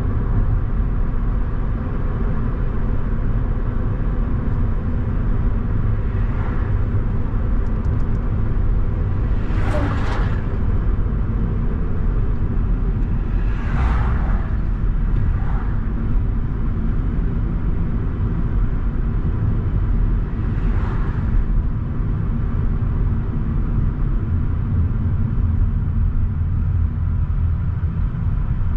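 Steady low road and engine rumble of a car driving along, with several short whooshes of other vehicles going past, the loudest about ten seconds in.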